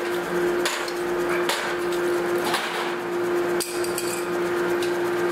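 Metal motorcycle brake shoes clanking and clinking as they are handled and dropped into a metal tub, in sharp knocks every half second to a second, the loudest about three and a half seconds in. A steady machine hum runs underneath.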